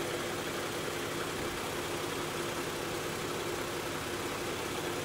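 Toyota Sienna's engine idling steadily, an even, unchanging sound with a faint hum, while its alternator carries a charging load of about 260 watts.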